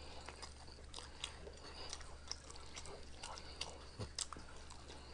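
Faint chewing and biting on fried chicken close to the microphone: scattered small wet clicks and crunches of mouth and meat, over a steady low hum.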